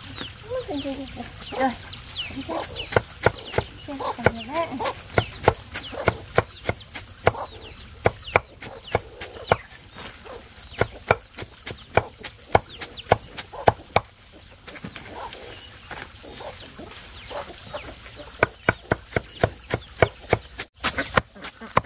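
Cleaver chopping cauliflower leaves and stems on a wooden block: a run of sharp strokes, a few a second, with a pause of a few seconds in the second half before a faster run. Chickens call over the first few seconds.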